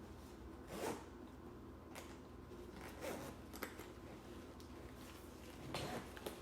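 Zipper of the DJI Mini 2's carrying case being pulled open in several short strokes.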